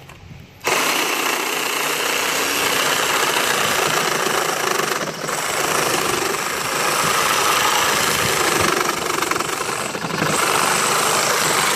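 Ryobi One+ 18V P516 cordless reciprocating saw starting about a second in and running steadily as its Diablo blade cuts through a wooden deck rail, its level dipping briefly twice. The saw is straining: the owner finds it really weak, and says it shut off a couple of times during the cut, which he guesses is a motor-protection cut-out.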